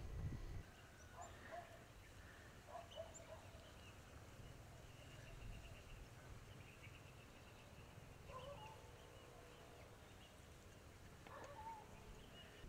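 Near silence with a few faint, short animal calls scattered through it and some faint high chirping about halfway through.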